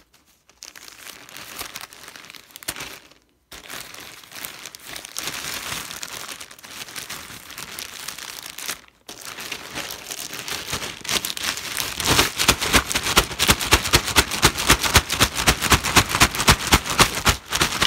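A plastic mailer bag crinkling and tearing as it is slit open with a pocket knife and rummaged through, along with paper wrapping. There are two brief pauses. From about two-thirds of the way in, the crinkling gets louder and more rapid.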